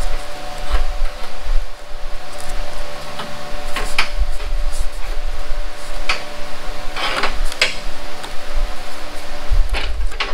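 Steady hum and low rumble of a running shop fan, with cardboard rustling and scraping against the workbench a few times as a template is handled, the longest scrape about seven seconds in.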